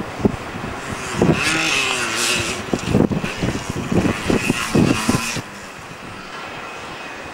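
Yamaha DT 125 two-stroke single-cylinder dirt bike running and revving unevenly as it rides past close by, with repeated thumps. The sound gets louder about a second in and drops suddenly after about five seconds.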